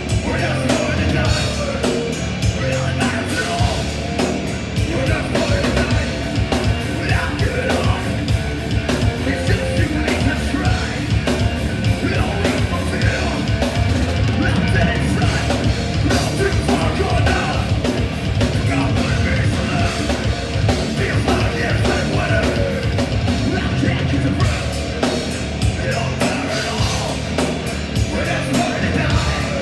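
Heavy metal band playing live and loud: distorted guitars, bass and a fast, pounding drum kit with yelled vocals.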